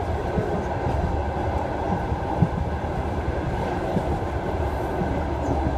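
Train wheels running on the rails with a steady rolling rumble and scattered sharp knocks from the wheels passing over rail joints.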